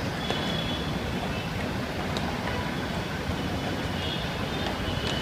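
Steady low rumble and hiss of outdoor urban background noise, with a couple of faint clicks.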